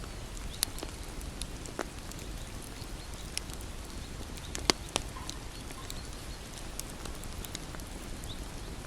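Bonfire crackling: irregular sharp pops and snaps of burning wood over a low, steady rumble of flames, the loudest pop about halfway through.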